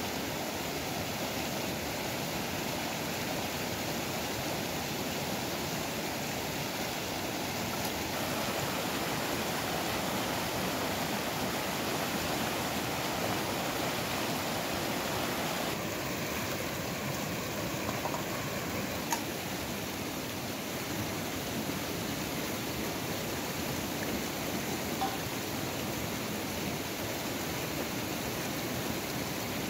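Shallow mountain stream rushing and splashing over rocks, a steady full sound of running water. A single small click is heard about two-thirds of the way through.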